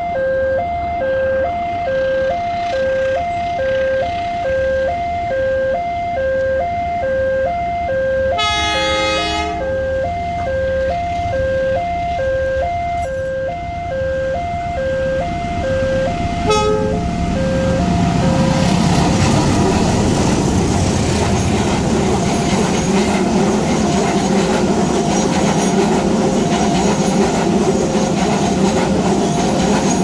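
Railway level-crossing alarm sounding a fast two-tone alternating electronic warning. About nine seconds in, a diesel locomotive's horn gives a blast of about a second, with a short toot about seven seconds later. Then a diesel-hauled passenger train passes the crossing and its engine and wheel noise rises over the alarm, which keeps sounding underneath.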